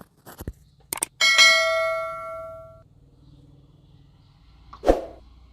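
A few quick clicks, then a single bell-like ding about a second in that rings out and fades over a second or so. A short knock comes near the end.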